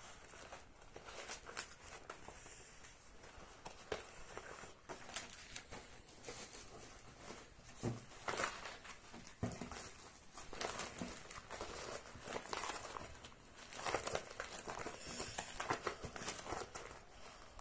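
Paper sheets and a plastic document folder rustling and crinkling as they are handled and leafed through, in uneven spells that are loudest in the second half, with a couple of dull knocks near the middle.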